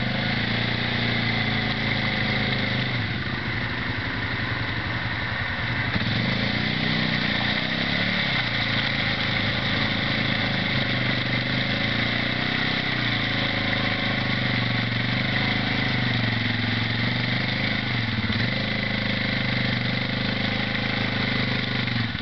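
Suzuki ATV engine running and revving up and down again and again while the quad is bogged in deep mud.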